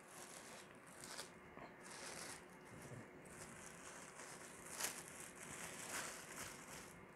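Faint crinkling of a plastic bread bag as slices are pulled out of it, with a short sharper tick about five seconds in.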